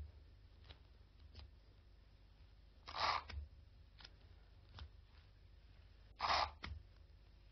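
Adhesive tape pulled off a roll in two short rips about three seconds apart, with faint taps and paper handling between, as paper pattern pieces are taped together.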